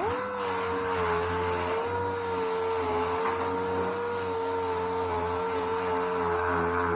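Dual-action (DA) sander spinning up and running at a steady high-pitched whine while taking the clear coat off a truck body panel.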